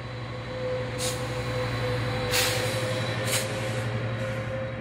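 Diesel train running with a steady low engine hum and a held tone, and three short hisses of air from its brakes about one, two and a half, and three and a half seconds in.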